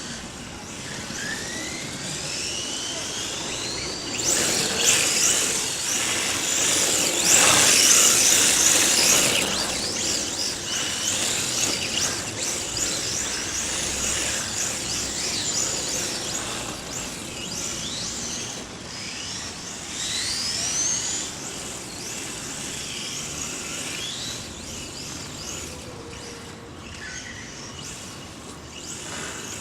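Electric RC drift car, a HobbyKing Mission-D, driving and drifting: its motor whine rises and falls in pitch as it speeds up and slows, over the hiss of tyres sliding across the court. The hiss is loudest from about four to ten seconds in.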